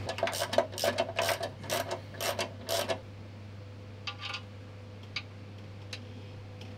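Ratchet wrench clicking in quick strokes, about four a second, for roughly three seconds, then a few faint clicks. It is running in the bolts that join the engine's flexplate to the torque converter, before they are torqued.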